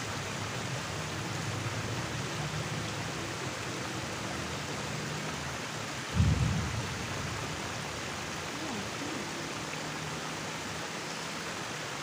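Steady rush of a river's flowing water. A brief dull low thump about six seconds in.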